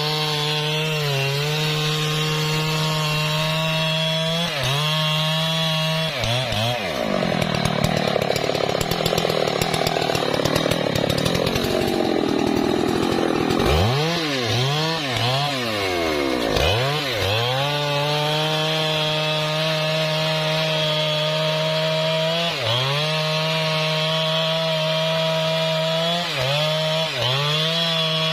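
Husqvarna 3120 XP big two-stroke chainsaw running at high revs. About six seconds in its pitch drops and turns rough as the chain bites into trembesi wood. It then sags and recovers several times before running steady again, with short dips near the end.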